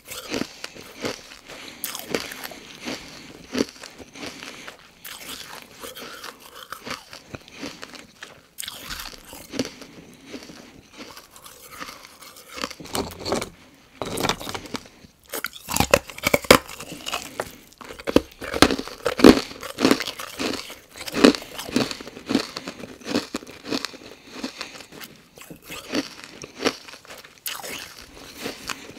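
Chunks of carbonated ice bitten and chewed close to the microphone: a steady run of sharp, loud crunches, densest and loudest through the middle stretch.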